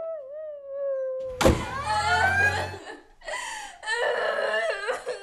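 A woman crying in exaggerated, drawn-out wails that waver in pitch. About one and a half seconds in it breaks into a sudden loud sobbing outburst, followed by shorter broken wails.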